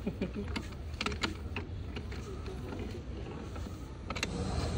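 A few sharp metallic clicks from a socket bar being worked on a bolt of an excavator wheel hub, over a steady low rumble that grows louder near the end.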